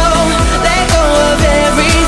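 Pop music with a steady beat of about two low thumps a second.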